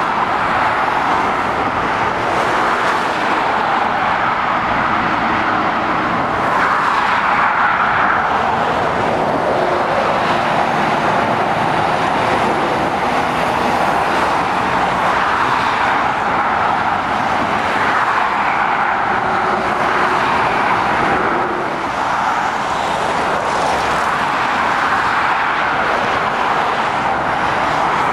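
Steady traffic on a dual carriageway: cars and lorries passing at speed, mostly tyre noise on asphalt, swelling gently as each vehicle goes by.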